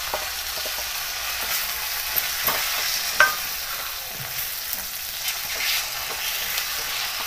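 Mashed roasted aubergine being stirred with a wooden spatula into spiced oil in a hot metal kadhai: steady sizzling, with scraping and tapping of the spatula against the pan and a sharp clink about three seconds in.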